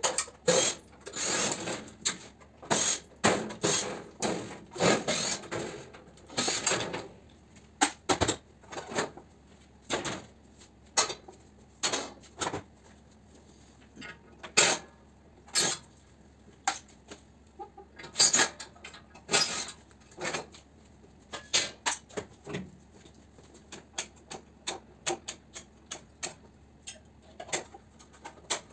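Cordless drill/driver running in short bursts as it backs screws out of a galvanized steel fan coil unit casing, with the clinks and knocks of sheet-metal panels and loose screws being handled. The longer bursts come in the first several seconds, then give way to scattered sharp clicks and knocks.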